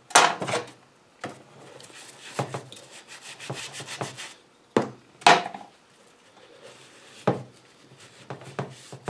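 A brush scrubbing a Briggs & Stratton lawn mower cylinder head in a tub of foamy degreaser, with rubbing and scraping on the metal. A few sharp knocks break it up, the loudest near the start and about five seconds in.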